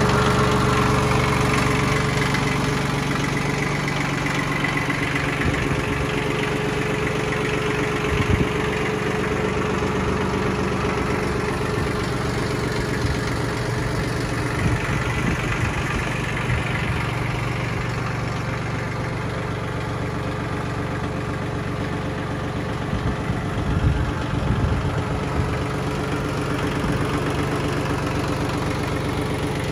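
Yanmar YM1610D compact tractor's diesel engine idling steadily. There are a few brief thumps about eight seconds in and again around twenty-four seconds.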